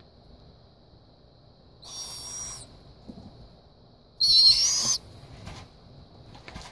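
Downy barred owl nestling giving two raspy, hissing screeches, one about two seconds in and a louder one about four seconds in: food-begging calls while it is being hand-fed.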